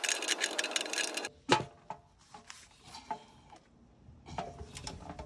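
Oil drain plug being refitted to a diesel truck's oil pan. There is a dense rustling scrape for about the first second as it is threaded in by hand, then a few sharp metallic clicks from a wrench snugging the plug tight.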